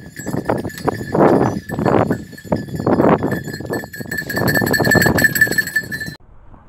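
Griffon and Gascon hunting hounds barking and baying in quick, overlapping barks inside metal dog boxes. The barking stops abruptly about six seconds in.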